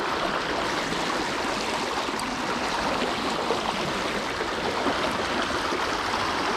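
River water rushing steadily, an even unbroken hiss.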